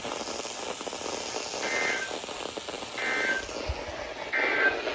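NOAA Weather Radio SAME end-of-message data bursts: three short, screechy two-tone digital bursts, a little over a second apart, over a steady radio hiss.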